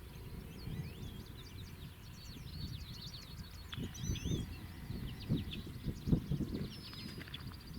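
Several birds chirping and singing in quick short calls, over irregular low rumbles that grow stronger in the second half.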